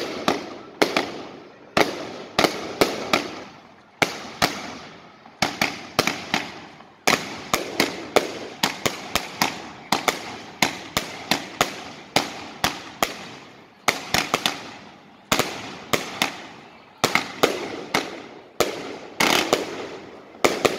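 Aerial fireworks display: shells bursting in quick, irregular succession, sharp bangs often coming two or three together, each dying away in a short echo.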